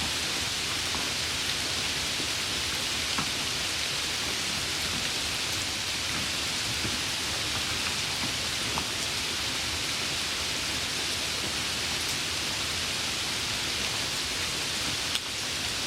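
Heavy rain falling steadily: a dense, even hiss of rain with faint ticks of individual drops, and a brief click near the end.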